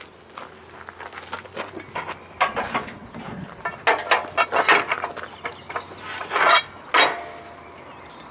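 Metal clattering and knocking as steel parts of a cable drum trailer's drum-lifting arm are handled with gloved hands. Irregular clicks build to a run of sharp clanks about halfway through, with two more loud clanks a second or so later.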